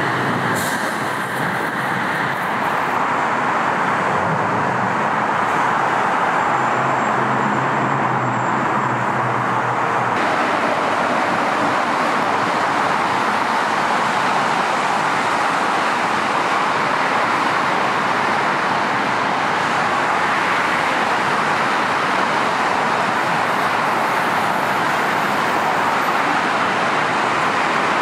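Steady rush of heavy freeway traffic, cars and trucks passing continuously. A low hum underneath dies away about ten seconds in.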